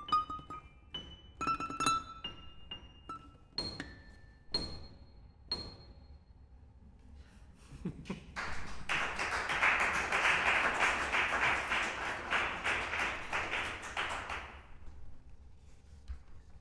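Improvised music on 10-string guitar and keyboard. Sparse single plucked and struck notes ring out at first. About eight seconds in, a dense, fast-rattling scratchy noise takes over for about six seconds and then cuts off abruptly.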